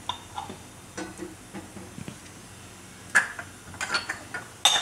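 Light clicks and knocks of kitchen utensils on stainless steel cookware, getting louder and sharper over the last second and a half with a brief metallic clink.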